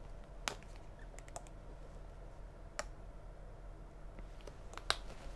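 A few scattered, short, sharp clicks over a faint steady low hum: small hand-handling noises.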